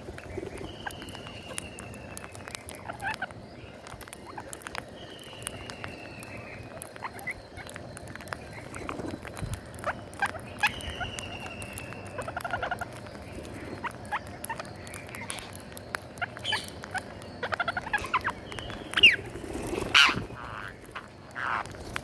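A flock of rose-ringed parakeets feeding on scattered grain: a busy patter of beak clicks and pecks, with squawking calls that grow louder near the end. Three thin falling whistles sound in the first twelve seconds.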